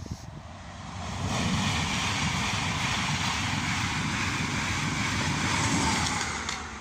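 LNER passenger train passing the level crossing: a rushing roar that builds over about the first second and a half, holds steady, then dies away near the end.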